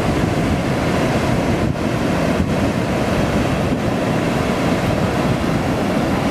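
Heavy ocean surf: big waves breaking and white water rushing over a rocky shore in one continuous loud roar.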